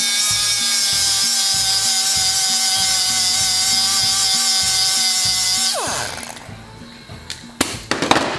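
High-speed rotary tool with a small abrasive disc grinding a snapped steel bolt stub flat in an aluminium cylinder head, a steady high whine. About six seconds in it lets off and spins down with a falling whine, and a few clicks follow near the end.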